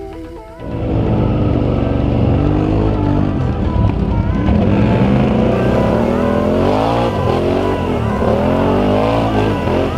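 ATV engines revving, rising and falling in pitch as the quads ride through mud; the sound comes in suddenly about half a second in.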